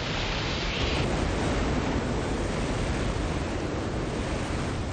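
Loud, steady rushing roar of tornado wind, with a brighter hiss in the first second; it eases a little near the end.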